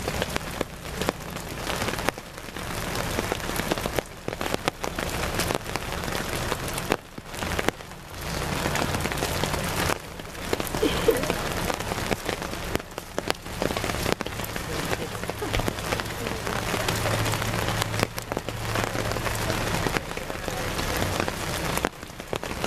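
Steady rain falling and pattering on umbrellas, a dense irregular patter.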